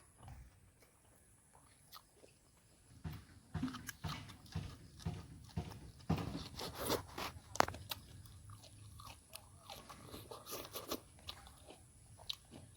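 A person eating close to the microphone: crisp crunching bites and chewing, starting about three seconds in, densest over the next five seconds, then thinning to softer chewing.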